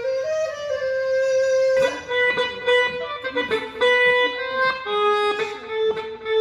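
Electronic saxophone (wind synthesizer) playing a sustained, legato melody. About two seconds in, a plucked guitar-like accompaniment with a steady beat joins under it.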